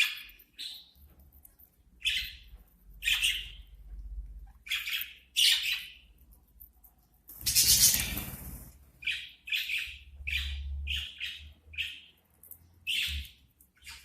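Budgerigars calling in a string of short chirps and harsh squawks, one after another. A louder burst of rustling noise, about a second long, comes about halfway through.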